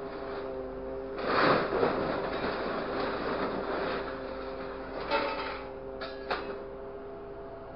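Grapple truck's engine humming steadily while the hydraulic grapple works, with a loud rush of noise about a second in. Scrap metal sheets clank and ring briefly around five and six seconds in as the grapple grabs and lifts them.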